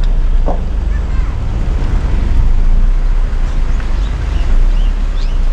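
Steady, loud low rumble throughout, without any clear voice.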